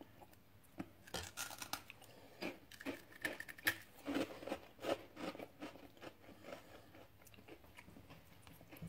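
Crunchy Japanese snack crackers being bitten and chewed by two people: a run of crisp crunches, thickest through the first two-thirds and fading to softer chewing near the end.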